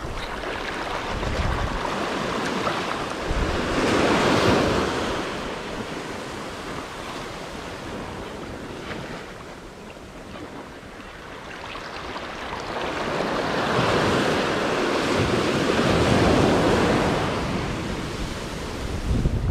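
Small waves breaking and washing up the shore in shallow surf, swelling twice: about four seconds in and again around fifteen seconds. Wind buffets the microphone near the start and end.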